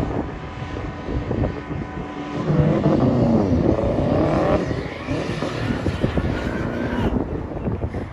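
Car engine running as the car drives, its pitch rising between about two and a half and four and a half seconds in as it accelerates, with road noise throughout.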